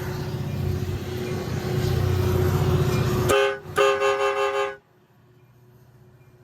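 A steady low rumble, then a short toot and a longer blast of about a second from a multi-note train horn: the railfan's own horn, not the locomotive's. After the second blast the sound drops away abruptly.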